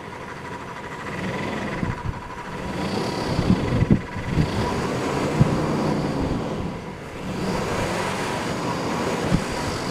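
Freshly rebuilt Chevy 350 small-block V8 (L31 Vortec) running and being revved by hand off idle several times, engine speed rising and falling.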